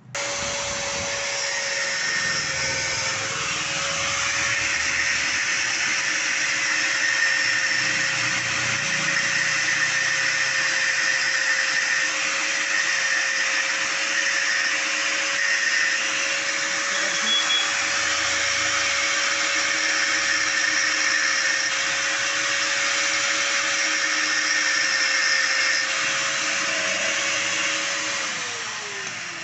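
Handheld electric angle grinder running steadily, its abrasive disc grinding into the steel clamp end of a motorcycle kick-start lever where the bolt snapped off. Near the end the grinder is switched off and its motor winds down.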